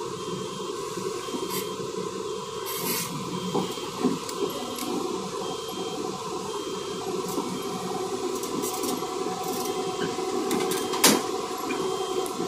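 Hyundai Robex 215 crawler excavator working: steady diesel engine and hydraulic drone as it digs rock and swings to load a tipper truck, with a couple of sharp knocks of the bucket on rock, the loudest about eleven seconds in. A faint high beep repeats about once a second.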